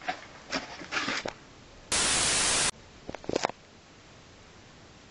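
A loud burst of white-noise static, a little under a second long, about two seconds in, that starts and stops abruptly. Faint clicks and handling rustles come before and after it.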